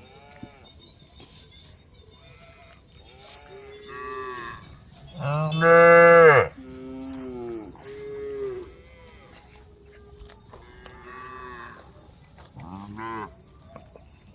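Several cows mooing one after another, with one loud, long moo about five seconds in and fainter moos before and after it.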